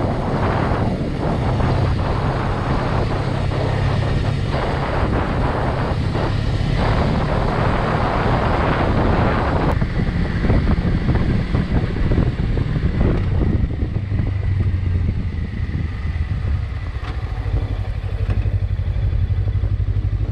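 Motorcycle engine running under way, with heavy wind rush on the microphone. About halfway through the wind noise drops away, leaving the engine's steady note.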